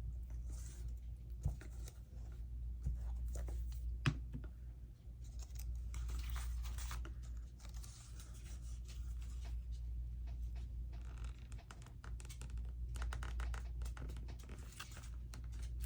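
Paper being handled, pressed and rubbed down while a hinged page is attached: intermittent rustling and scratching, with a couple of light taps, over a steady low hum.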